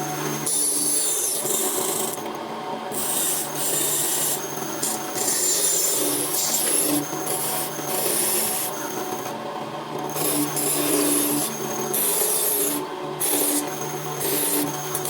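Rasping, scraping strokes on wood, repeated in uneven runs with short breaks between them, over a steady low hum.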